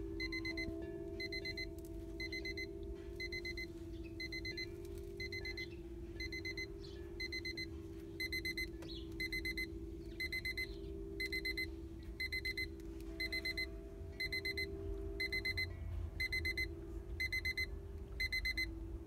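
Braun Reflex alarm clock's electronic alarm beeping: short bursts of high beeps about once a second, each burst holding more beeps toward the end. A steady low hum runs underneath.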